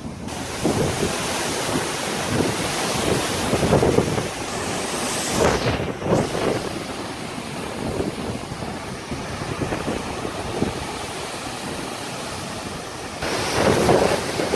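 Strong wind blowing and buffeting the microphone in gusts, with the loudest gust near the end.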